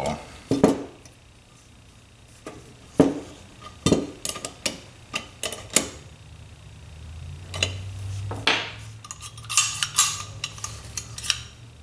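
Small metal parts of a Tillotson Model X carburetor clicking and clinking as they are fitted by hand: the choke lever, nut and choke rod going onto the carburetor body. Scattered sharp taps come at uneven intervals, with a quick run of them near the end.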